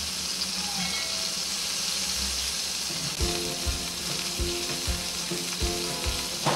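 Chicken wings pan-frying in hot cooking oil in a flat pan, a steady sizzle.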